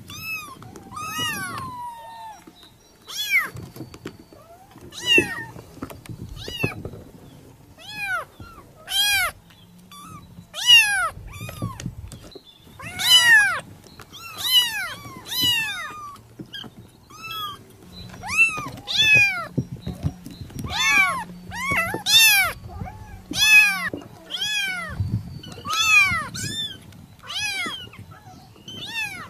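A kitten mewing over and over, short high-pitched mews about one a second, some in quick pairs, each rising and then falling in pitch.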